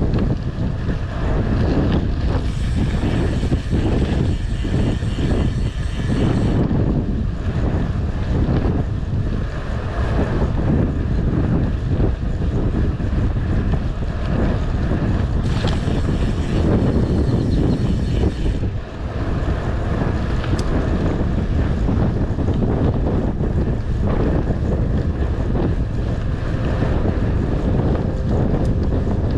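Wind buffeting the microphone of a bike-mounted camera while riding a gravel bike, a steady heavy rumble over the tyres' road noise. Twice, for a few seconds each, a brighter hiss joins it.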